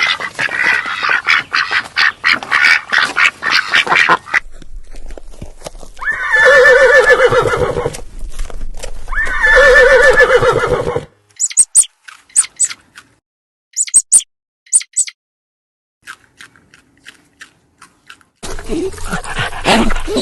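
A run of animal calls: rapid short calls at first, then two long quavering bleats of a sheep, then a few very high, short squeaks and chirps, and another burst of calls near the end.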